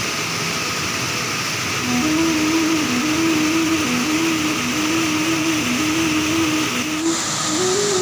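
Waterfall water rushing and splashing over rocks, a loud, steady hiss. A simple repeating melody of held notes runs over it from about two seconds in, and the water sound shifts abruptly, becoming brighter, about seven seconds in.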